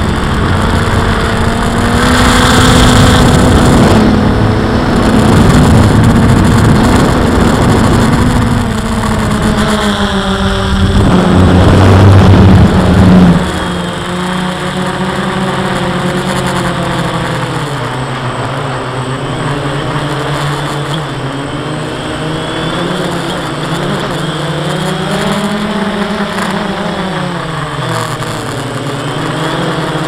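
DJI Phantom quadcopter's motors and propellers humming, their pitch rising and falling as the flight controller adjusts motor speed. Heavy wind noise buffets the microphone and drops away suddenly about thirteen seconds in.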